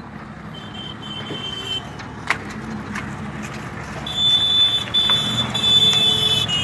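Truck engine running with its reversing beeper sounding: a high electronic tone in long repeated pulses, louder from about four seconds in, as the truck manoeuvres.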